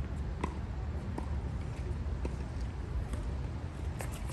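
Scattered sharp knocks and taps over a steady low rumble.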